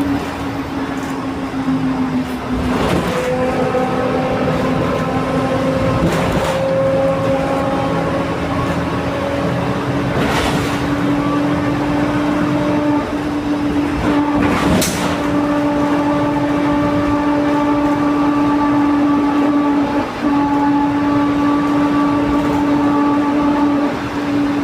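Mercedes-Benz LO 916 bus differential whining with a strong, steady tone as the bus drives, over its OM 924 LA four-cylinder diesel. Brief knocks or rattles come through four times, a few seconds apart.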